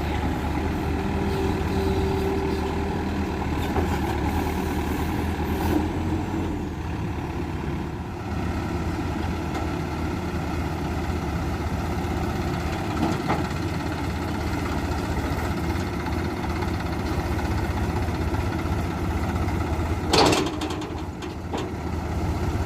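Diesel engines of a backhoe loader and a farm tractor running steadily under work. About twenty seconds in there is a short, loud burst.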